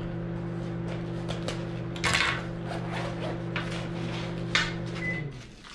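Rustling and light clicks from handling a soft padded GoPro case and its plastic packaging, the strongest about two seconds in. Under them runs a steady low hum that cuts off shortly before the end.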